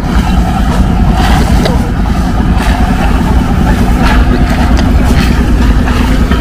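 A Mahakam river boat's engine running steadily with a deep, even rumble. A few short knocks and clatters come over it.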